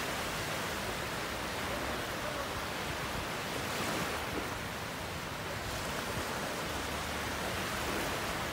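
Steady rush of sea surf breaking and washing on a sandy beach.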